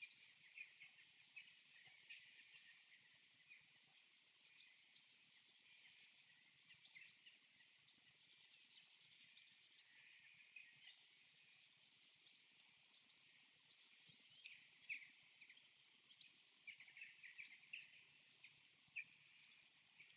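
Faint forest birdsong from a nature-sounds recording: scattered short chirps and tweets over a soft hiss. The chirps come a little busier around the middle of the stretch and again toward the end.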